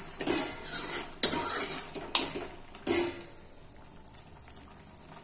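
A steel ladle stirring thick chana dal and bottle gourd in a metal kadhai, scraping and knocking against the pan four times in the first three seconds, with a sharp clink at just over a second in. After that the stirring is quieter.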